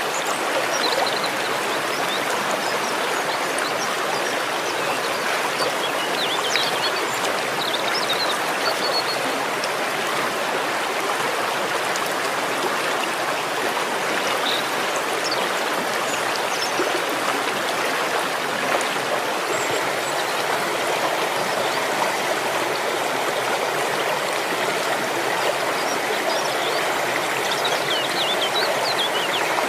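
Waterfall: water falling and rushing with a steady, even splashing noise, with a few faint high chirps now and then.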